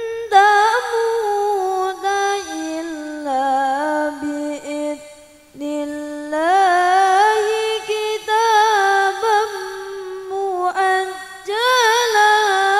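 A single voice chanting Arabic in the melodic Qur'an-recitation (tilawah) style: long held notes with ornamented turns, with a pause for breath about five seconds in.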